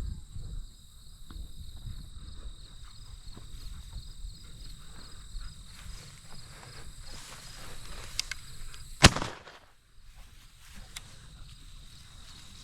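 A single shot from a 28-gauge shotgun about nine seconds in, sharp and much louder than anything else, over a steady high drone of insects.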